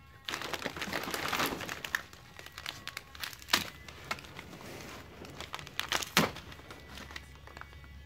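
Plastic treat wrappers and a cardboard box crinkling and rustling as a monkey rummages through them. The rustling is densest in the first two seconds, with two sharp crackles later on.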